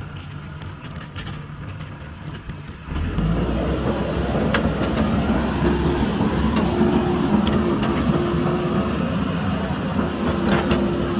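JCB backhoe loader's diesel engine running, low at first, then about three seconds in jumping to a much louder working note with a steady whine under load, with a few sharp knocks.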